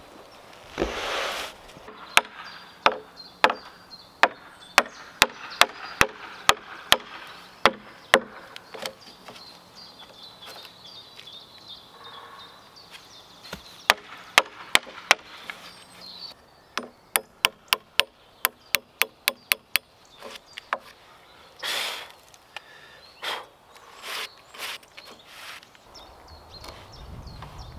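Hammer striking at a log beam joint on an oak foundation post: a series of sharp blows, about two a second, then a faster run of lighter taps past the middle, with a few longer, rougher sounds near the end.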